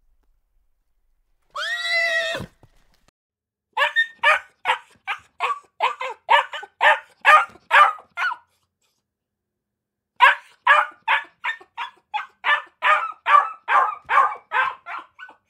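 A short horse whinny about two seconds in. Then puppies yapping in quick high barks, about three a second, in two long runs with a pause between.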